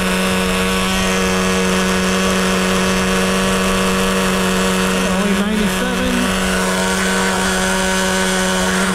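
Traxxas Rustler 2.5's small two-stroke nitro glow engine idling steadily at one even pitch while it is being broken in.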